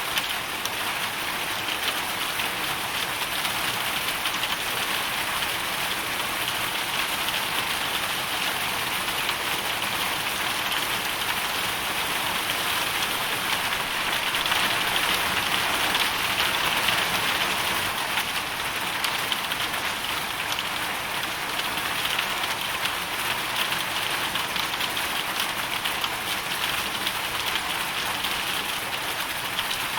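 Hail storm: a dense, steady patter of hail striking a surface, swelling a little louder about halfway through.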